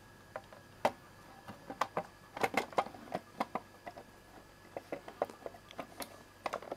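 Plastic side cover of a Bernina 910 sewing machine being fitted and pressed into place by hand: irregular plastic clicks and light knocks against the machine housing, busiest about halfway through.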